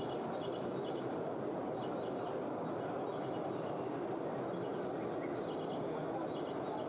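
Steady background din with faint bird-like chirps in short clusters that recur every second or so.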